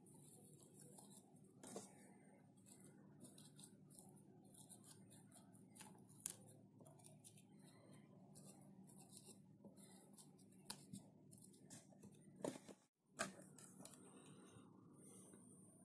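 Near silence, with faint rustling of dry moss pressed by fingers and a table knife into the gaps between glued birch-bark pieces, and a few light clicks.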